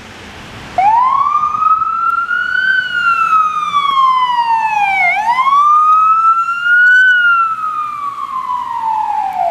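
Urgences-santé ambulance siren, switched on suddenly about a second in and wailing in slow rising and falling sweeps, two full cycles, loud as the ambulance passes close by.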